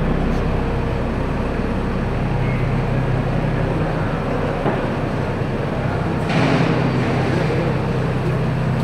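Steady machinery drone with a low hum, with a short hissing surge about six seconds in.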